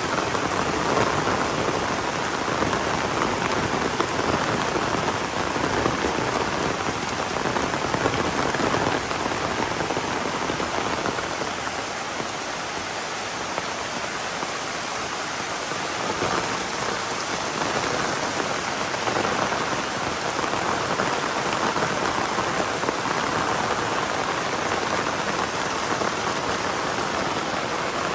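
Heavy tropical rain pouring down in a steady hiss that eases a little about halfway through, then builds again.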